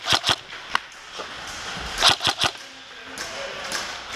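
Airsoft guns firing: a couple of sharp cracks near the start, then a quick group of three about two seconds in.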